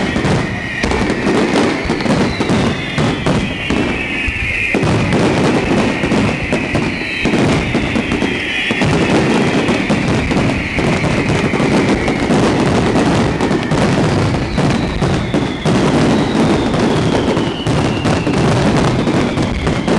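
Fireworks display: a dense, continuous barrage of bangs and crackling bursts, with several long whistles falling in pitch over it.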